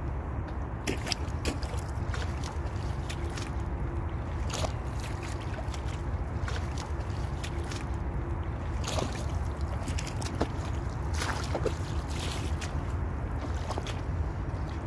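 Rubber boots squelching and sloshing in shallow muddy water, with irregular short splashes and sucking sounds as the feet shift and step, over a steady low rumble.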